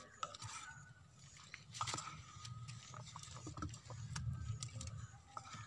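A spoon scraping and scooping pounded lovi fruit out of a wooden mortar, with many small clicks and scrapes, and a clay bowl being handled about halfway through.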